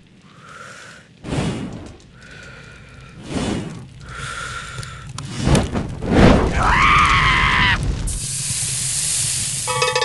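Cartoon sound effects of an animated character catching fire: short cries and whooshes, a longer pitched yell about six seconds in, then about two seconds of steady hissing like a burst of flame. A short chime sounds at the very end.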